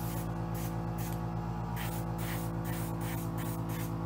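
Airbrush giving short hisses of spray in quick succession, about ten in four seconds, as small marks of paint are dabbed on, over the steady hum of its air compressor.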